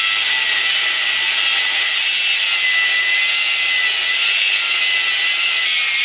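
Cordless Craftsman angle grinder with a cut-off wheel cutting through steel on the rear axle: a steady high whine over the hiss of the wheel biting the metal. It stops near the end.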